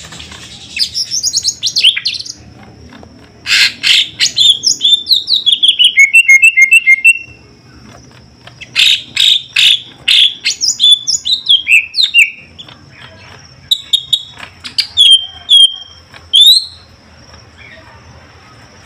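Greater green leafbird (cucak ijo) singing in four loud bursts of rapid chattering notes and sweeping whistles, with short pauses between them.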